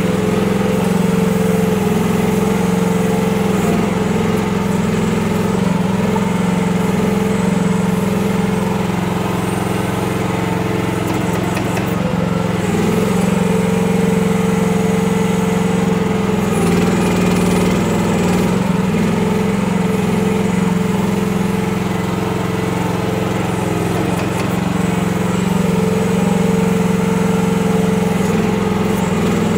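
Small gasoline engine of a Kymron RH14G 1-ton mini excavator running steadily while the machine digs, its pitch dipping briefly every several seconds.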